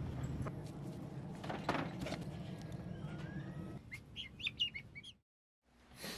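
Guinea fowl chirping, a quick run of high peeps lasting about a second just past the middle. A low steady hum comes before it.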